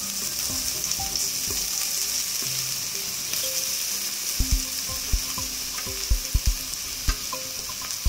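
Crushed coconut sizzling in hot coconut oil in a clay chatti, a steady frying hiss. From about halfway, a series of short dull knocks as the coconut is tipped in from a plate and a spoon stirs against the pot.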